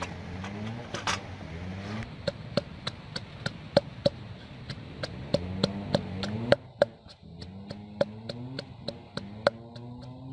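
Wooden pestle pounding garlic, shallots, turmeric and lemongrass in a clay mortar: a steady run of dull knocks, about three or four a second, set in from about two seconds in. Wind noise on the microphone fills the first two seconds.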